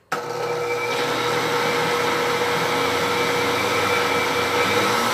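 Electric countertop blender running at a steady speed, blending a thick milk, cream and gelatin pudding mixture: a loud, even motor whine that starts abruptly.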